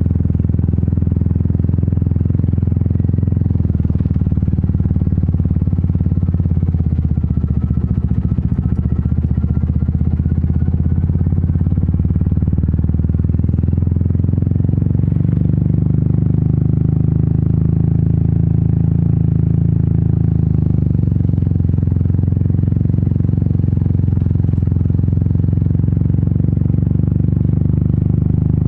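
Royal Enfield Meteor 350's single-cylinder engine and exhaust running steadily while riding, the low thumping note shifting slightly about halfway through.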